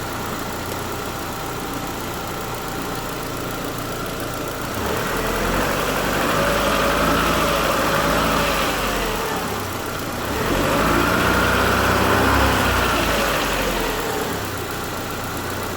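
Chevrolet Lacetti 1.8-litre four-cylinder engine idling, then revved up twice and held for a few seconds each time before dropping back to idle. The intake manifold flap valve's connector is unplugged, and no knock comes from the flaps: the flap knock has been cured.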